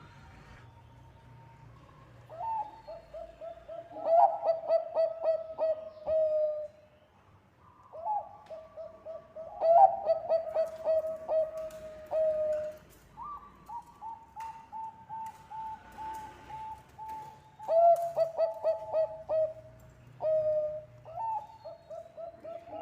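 Zebra dove (Bangkok perkutut) singing its cooing song in four phrases. Each phrase is a quick run of stuttering notes running into a held coo.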